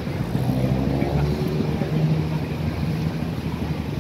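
Street traffic with a motor vehicle's engine running close by: a steady low hum that swells about half a second in and eases off near three seconds.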